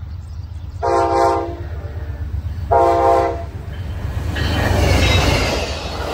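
Amtrak GE Genesis diesel locomotive sounding two short horn blasts about two seconds apart. It then passes close by with a rising rumble of engine and wheels on the rails.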